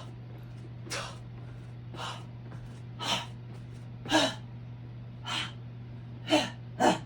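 A person taking short, forceful breaths, about one a second and louder toward the end, over a steady low hum.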